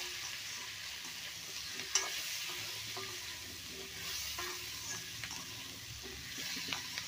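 Yellow pumpkin cubes sizzling in hot oil in a kadai while a spatula stirs them, with small scrapes and knocks of the spatula against the pan and a sharper knock about two seconds in.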